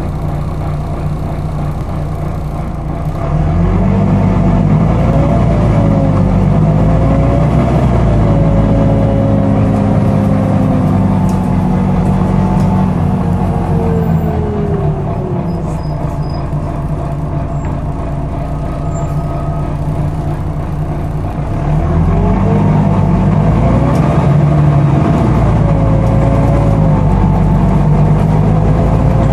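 Volvo B9TL double-decker bus running, heard from inside on the upper deck: the engine with its loud cooling fan, a hoover-like whine. The sound rises in pitch and gets louder about three seconds in and again about twenty-one seconds in, then holds and slowly sinks.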